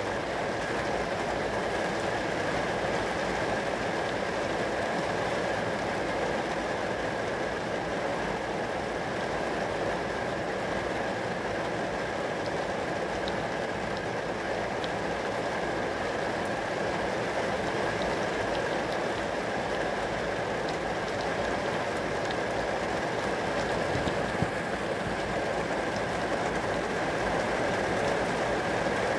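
Steady rain pattering on a glass pane, an even hiss of many small drop impacts with no lulls.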